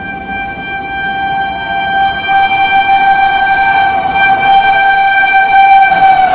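Indian Railways express locomotive's horn held in one long, steady blast as the train approaches at speed, growing louder. Its pitch drops slightly as the locomotive passes near the end, where the rush of the train starts to build.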